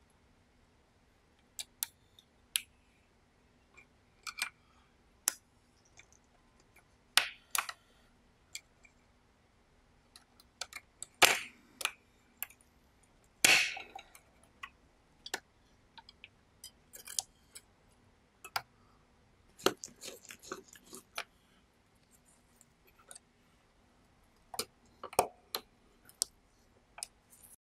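Tweezers and fingers handling the metal chassis plate and plastic gears of a Panasonic RQ-2730 cassette recorder's tape mechanism during disassembly: irregular sharp clicks and taps, with two louder ones near the middle.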